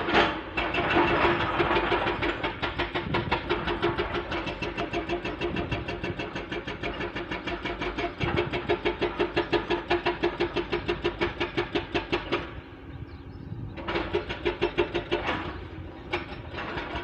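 Hydraulic rock breaker on a Komatsu 220 excavator hammering hard stone, rapid blows several a second in a long run that stops about twelve seconds in, then two short bursts near the end. The breaker's chisel tip is worn blunt.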